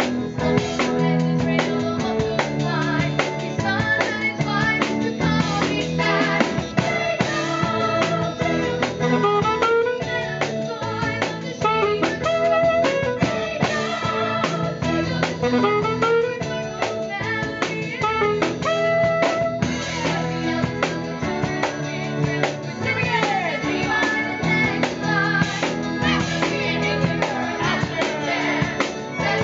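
Live theatre band with saxophone and drums accompanying a young cast singing a show tune together.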